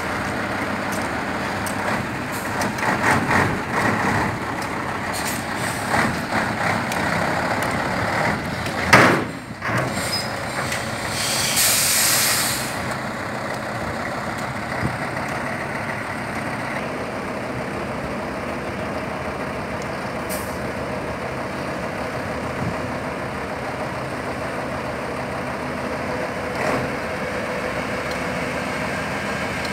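Three-axle tipper truck's diesel engine running steadily while the raised dump bed unloads earth. About nine seconds in there is a sharp, loud burst of air from the truck's air system, and a hiss of escaping air follows a few seconds later.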